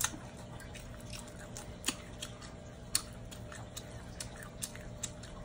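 Cooked shrimp being peeled by hand: scattered small, sharp clicks and crackles as the shells come off, over a faint steady hum.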